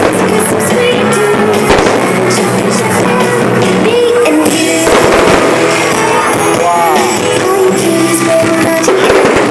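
Loud recorded music playing over the loudspeakers of a pyromusical fireworks show, with held notes and a steady level throughout.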